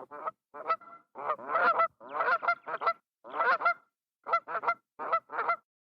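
African crested crane (grey crowned crane) calling: a string of short pitched notes in quick groups of two to four, about eight groups, stopping shortly before the end.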